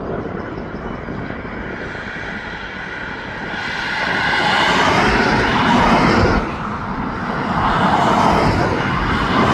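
Coal hopper wagons rolling across a steel truss railway viaduct: a steady rumble that swells about four seconds in, dips briefly, then rises again, with a faint high ringing over it while it is loudest.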